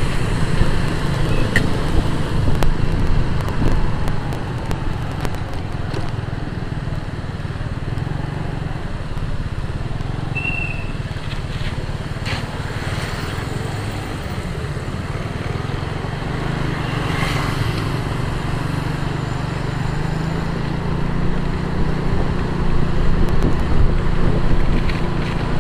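Motorcycle riding in city traffic: steady engine and road rumble, heavy in the low end, with a brief high beep about ten seconds in.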